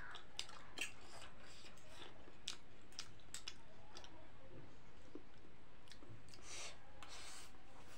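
Metal fork and spoon clicking and scraping against a plate as a pile of instant noodles is mixed and lifted, with chewing. The sharp clicks come irregularly.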